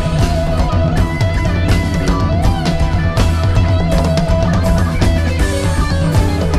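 Jam-band rock: an electric guitar soloing with sustained, bent notes over a drum kit and bass, loud and continuous.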